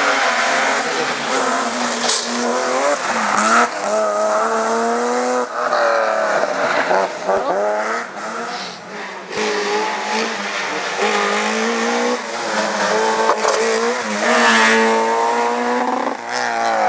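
Rally car engine revving hard under acceleration, its pitch climbing and dropping sharply several times as it shifts through the gears, with tyre squeal mixed in.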